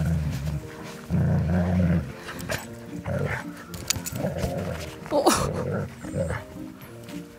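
Dogs growling as a Doberman and a husky play-fight in the snow, over background music with a steady repeating bass line.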